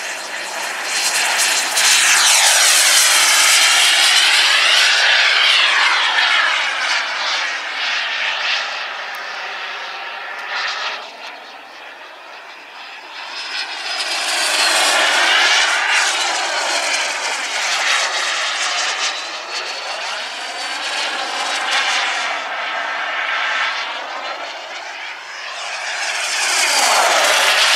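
JetCat P-20 micro jet turbine on a model glider, running as a loud, high-pitched jet rush. It swells after the takeoff roll, fades as the glider flies off around the middle, and comes back loud twice as it passes near, its pitch sweeping up and down on each pass.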